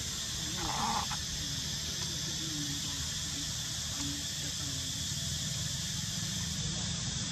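A macaque gives one brief squeal about a second in, over a steady high hiss of outdoor background.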